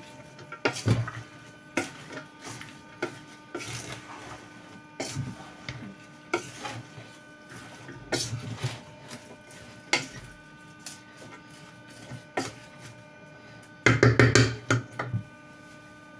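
Wooden spoon stirring a filling in a stainless steel pot, scraping and knocking irregularly against the pot's sides and bottom, with a quick flurry of louder knocks near the end.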